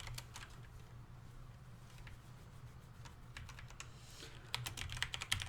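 Typing on a computer keyboard: scattered keystrokes, a few at first and a quicker run near the end, over a low steady hum.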